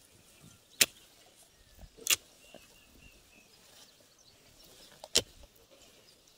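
A digging hoe chopping into hard earth: three sharp strikes, at about one, two and five seconds in.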